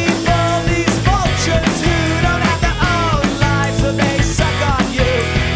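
Indie rock song played by a trio: electric guitar, bass guitar and drum kit, with a steady beat.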